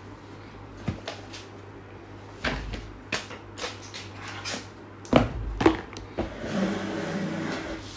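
Handling noises of a phone box and a clear plastic phone case: scattered clicks and rustles, the two loudest about five seconds in. A steady low hum runs underneath.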